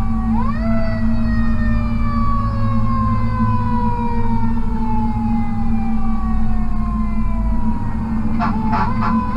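Fire truck siren heard from inside the cab: it winds up quickly just after the start, then falls slowly in pitch for about seven seconds, over the steady drone of the truck's Caterpillar C12 diesel engine. Near the end come three short horn blasts.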